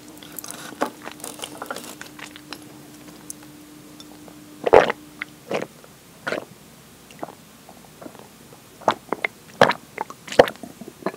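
Close-miked mouth sounds of eating and drinking: soft wet clicks of chewing and swallowing strawberry cake, then gulps as milk is drunk from a glass, with a cluster of louder gulps near the end.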